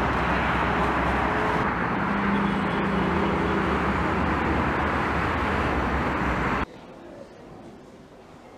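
Steady road-traffic noise, an even rushing hum, that cuts off abruptly about six and a half seconds in to a much quieter background.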